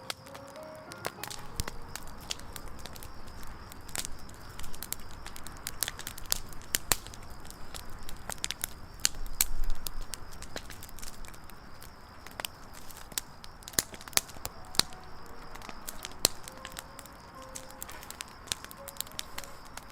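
Wood campfire burning, the firewood crackling with many irregular sharp pops and snaps over a low steady hiss. A brief louder low rumble swells about nine seconds in.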